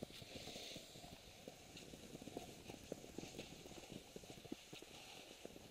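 Faint, irregular crunching and a soft hiss of skis moving over snow.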